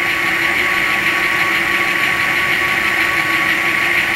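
The DCC sound decoder of an HO scale Athearn Genesis GP15-1 model locomotive, playing a diesel engine idling steadily through the model's small onboard speaker. Over the idle runs a thin steady whine, the dynamic brake sound effect, which stops near the end.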